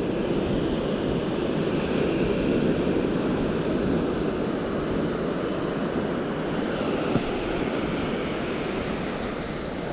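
Steady wash of sea surf breaking on the beach, with wind buffeting the microphone.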